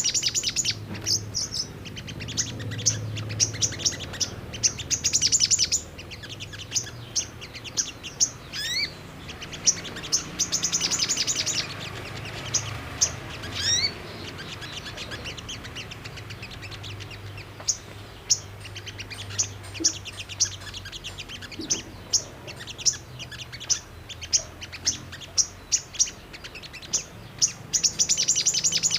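Little spiderhunter (sogon) calling: a long run of sharp, high chips, broken by fast chattering trills and a couple of quick rising whistles, over a faint low hum.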